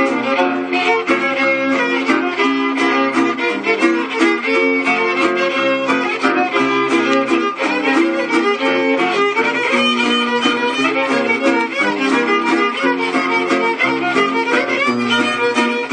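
Two fiddles playing a tune together, with quick note changes and no break.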